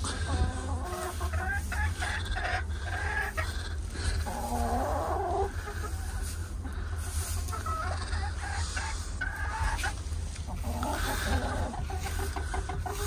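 Several hens clucking and chattering at close range, short calls overlapping one another, over a steady low hum.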